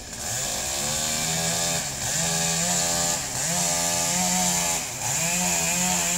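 Two-stroke chainsaw running at high revs and cutting wood. Its engine note sags briefly three times as the chain bites, then picks back up.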